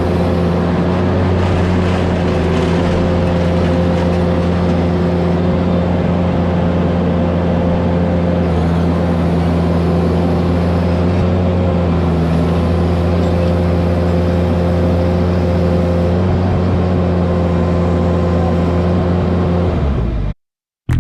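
Vermeer mini skid steer's engine running steadily at constant high revs, with a noisy clatter over the drone. It cuts off abruptly near the end.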